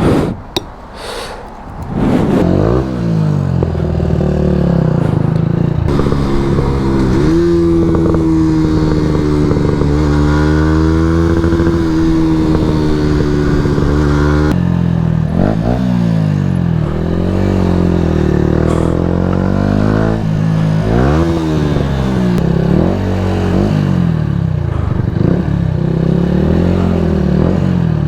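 Yamaha MT-125's single-cylinder four-stroke engine through an Akrapovič exhaust. It comes in loudly about two seconds in, holds a steady pitch for several seconds, then the revs climb and drop again and again as the bike is ridden.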